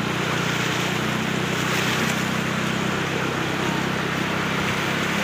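Floodwater rushing across a road in a steady, unbroken wash, with wind noise on the microphone.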